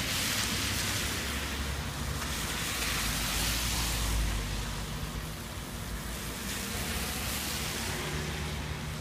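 Car tyres hissing through shallow floodwater on a street, louder in the first few seconds, over a steady low rumble of traffic.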